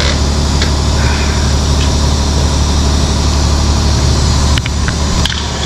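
Large motorhome diesel engine idling steadily, with a few light clicks of tools.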